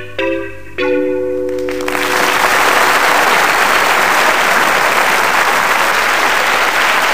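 The song's closing chords ring out, then a live audience bursts into applause about two seconds in and keeps clapping steadily.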